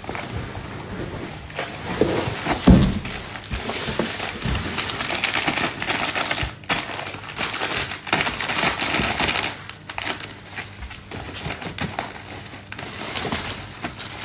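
Plastic mailer bags and a polythene sheet rustling and crinkling as they are handled and pressed into a cardboard box, with scattered clicks and taps from the small packed boxes.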